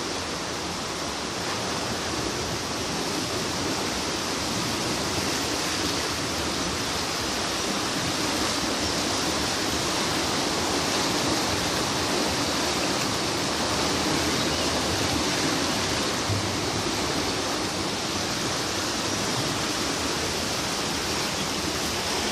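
Swollen Yerres river in flood: fast, brown floodwater rushing past in a steady, continuous wash of turbulent water.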